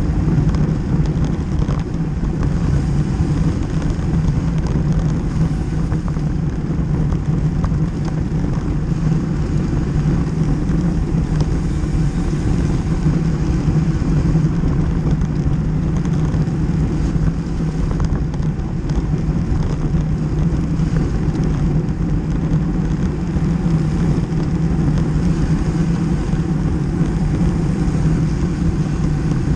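Steady rumble of road-bike riding at race speed: wind buffeting the microphone and tyres rolling on rough asphalt, with no distinct events.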